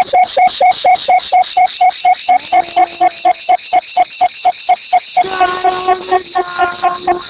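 Electronic sound effect: a fast, even pulsing beep of about six pulses a second, made of several steady tones at once. Lower held tones join in partway through and again about five seconds in.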